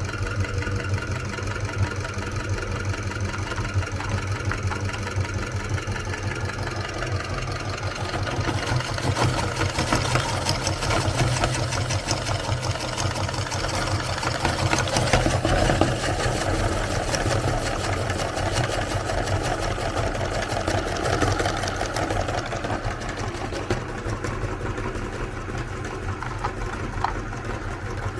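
Electric meat grinder motor running with a steady hum while Oreo cookies are ground, with crackling and crunching that is busiest through the middle.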